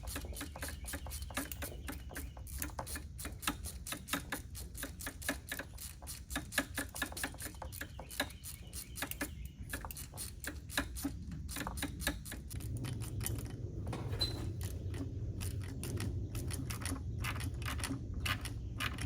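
Fast, uneven clicking of a hand ratchet running in the bolts of a plastic intake manifold. A low hum comes in about two-thirds of the way through.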